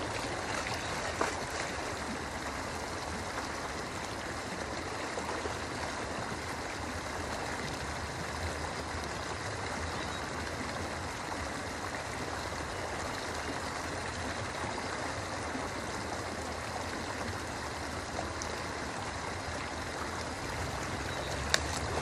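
Steady rush of shallow river water flowing over a concrete slab, with a single short knock about a second in.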